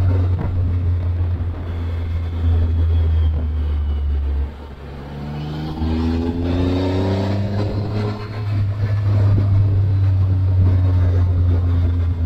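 Triumph Tiger 1200 Explorer's three-cylinder engine riding along under a steady low wind rumble. About halfway the sound drops off briefly, then the engine note rises as it accelerates hard for a couple of seconds before settling back to a steady cruise.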